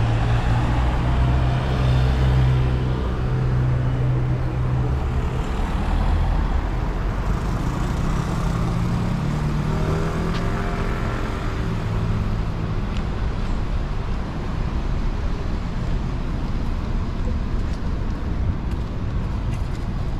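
Road traffic: a vehicle engine running close by with a steady low hum for the first few seconds. Around nine to eleven seconds in, an engine's pitch rises as a vehicle moves off, over constant traffic noise.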